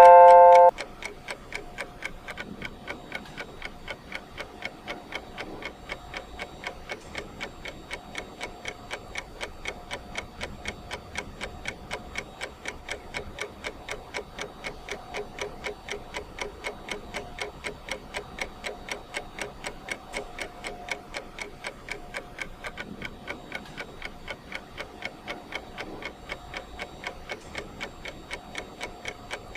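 Ticking clock sound of a countdown timer: a steady tick about twice a second, following a short beep right at the start.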